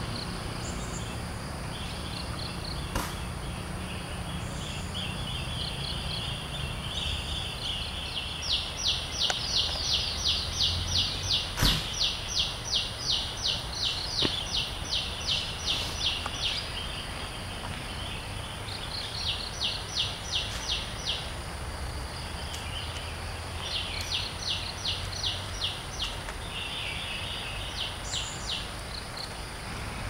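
Insects calling in a forest: a high trill with bouts of rapid, regular pulses, about three or four a second, that start and stop every few seconds. A sharp click about twelve seconds in.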